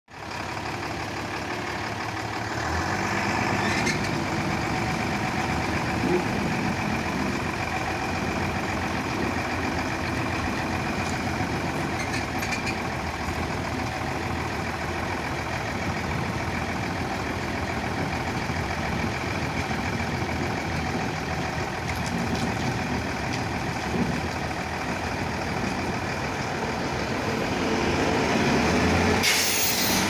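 Diesel engine of a dump truck converted to run on rails, running steadily as the truck moves along the railway track. A loud burst of hiss comes near the end.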